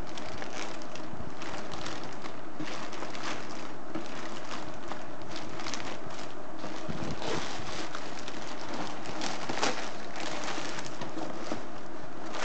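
Thin plastic courier mailer bag crinkling and tearing as it is ripped open by hand, a dense run of crackles throughout.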